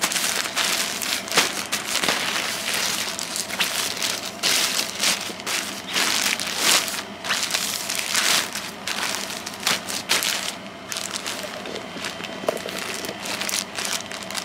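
Plastic mailer bag crinkling and rustling irregularly as hands rub, turn over and open it.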